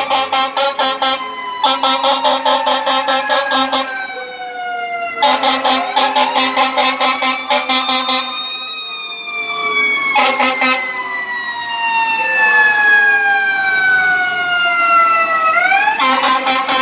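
Fire engine responding with its siren wailing: a long falling wind-down that swings back up near the end. Over it come several stretches of rapidly stuttered air-horn blasts.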